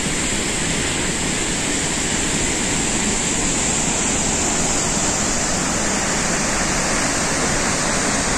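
Steady, loud rush of Gokak Falls, a large waterfall pouring over its cliff into a rocky gorge.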